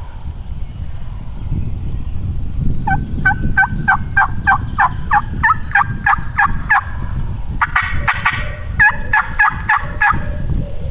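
Turkey yelping: a long run of evenly spaced yelps, about four a second, then a single rattling gobble about eight seconds in, followed by a shorter run of yelps.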